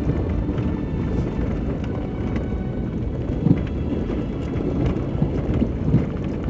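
A vehicle driving slowly over a rough dirt track, a steady low rumble of engine and tyres with a few short knocks and jolts, the loudest about halfway through.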